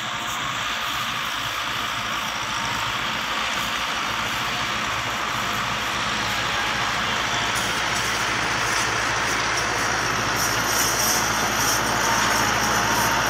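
Massey Ferguson 385 tractor's diesel engine running steadily as it works the field, growing gradually louder as the tractor comes closer.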